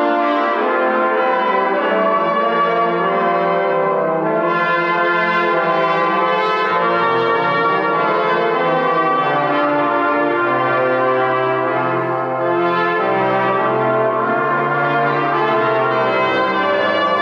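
Brass quartet of trumpets and a trombone playing sustained chords, the trombone's low notes entering about seven seconds in, ringing in a church.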